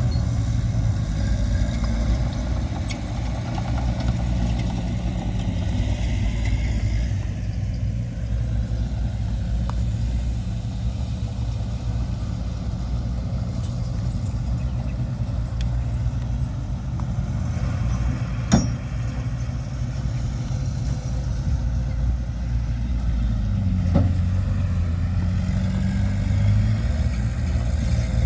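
Diesel engine of heavy earthmoving machinery running steadily under work, with two sharp knocks past the middle; after the second knock the engine note rises as it speeds up.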